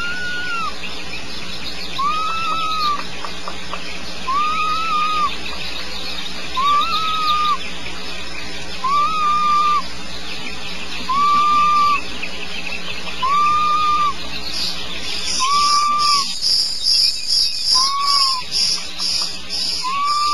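Owlet (owl chick) giving its 'snoring' call: a short arched tone, repeated about every two seconds, around ten times. About three-quarters of the way through, a rapid high-pitched chirping joins in.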